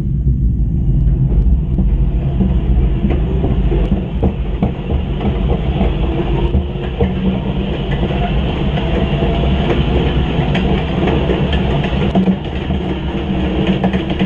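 MIT Hyperloop pod running at speed along the track in the low-pressure tube. There is a steady low drone with many irregular clicks and rattles, and the noise grows over the first couple of seconds as the pod picks up speed.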